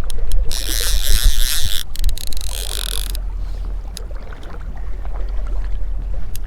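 River water rushing and splashing close to the microphone, over a steady low wind rumble; the splashing hiss is loudest from about half a second to three seconds in, then eases.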